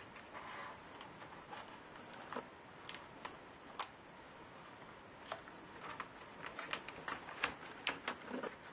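Irregular small clicks and taps of laptop parts being handled by hand, such as plastic panels, screws and tools, coming more often in the second half, over a steady hiss.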